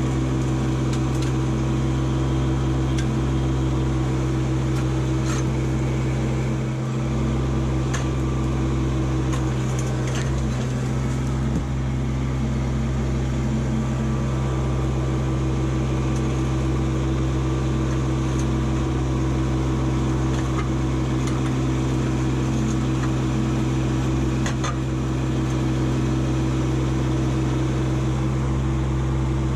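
Kubota LX2610 compact tractor's three-cylinder diesel engine running at a steady speed while the loader and grapple work, with a few faint knocks and clicks from the grapple against the boulders.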